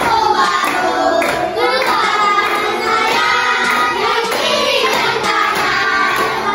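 A children's song: singing voices over music with a steady beat.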